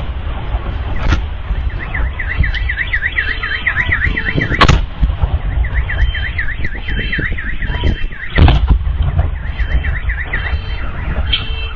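Car alarm sounding a rapid, repeating chirping wail that breaks off and starts again twice, over a constant low rumble. Two sharp, loud blasts from cluster-munition explosions cut in, about four and a half and eight and a half seconds in.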